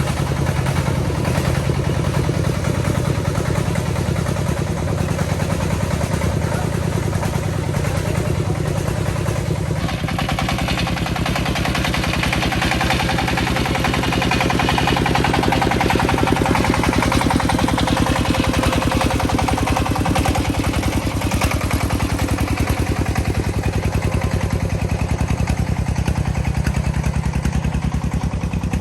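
Công nông farm truck's single-cylinder diesel engine running with a rapid, even clatter of firing strokes. About ten seconds in the sound turns brighter and grows louder for a while, then eases off near the end.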